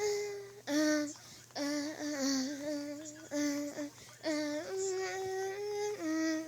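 Phone ringtone playing a sung melody: held notes of half a second to a second and a half, stepping up and down in pitch with short breaks between them.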